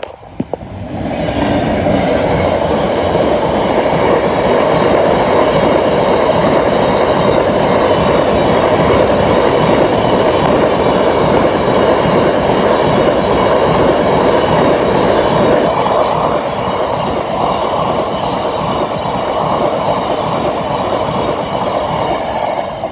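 Freight train serving Drax power station passing by: a loud, steady noise of wheels on rail that builds about a second in, holds for some twenty seconds, then drops away near the end.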